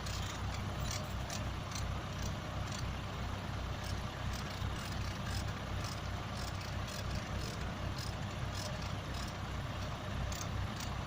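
Backhoe engine running steadily at low revs, with light clicks now and then.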